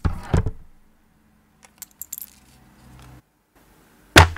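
A few light metallic clinks, then two heavy knocks near the end as the wooden box of a Robur watch-glass press set is put down on the bench, its aluminium adapters clinking in their holes.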